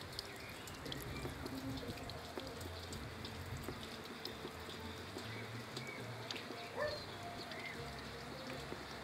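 Water trickling steadily from a garden pool, with many small splashes and drips, and a few faint, short high chirps.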